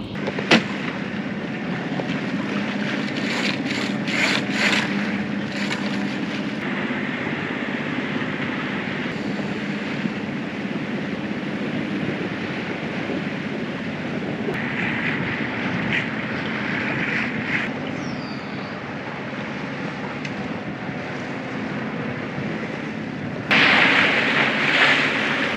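Boat engine running steadily under way, with wind and water noise that swells up a few times.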